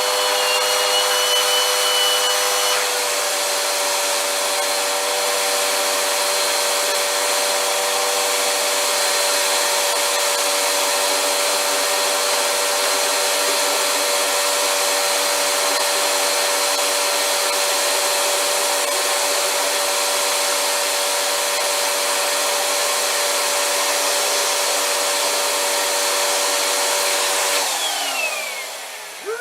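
Vacuum cleaner running steadily with a constant motor whine and rushing air. Near the end it is switched off, and the whine falls in pitch as the motor winds down.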